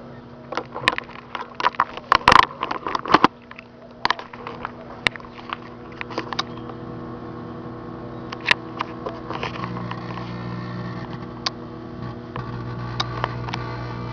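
Microwave oven running with a steady electrical hum while arcing inside it gives sharp snaps and crackles, packed thick in the first few seconds and scattered after; the hum grows louder about ten seconds in. The microwave is burning itself out.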